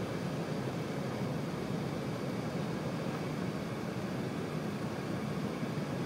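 Steady cabin noise inside an Airbus A380 on approach with its flaps extended: engine and airflow noise heard through the cabin wall as an even, unbroken rushing.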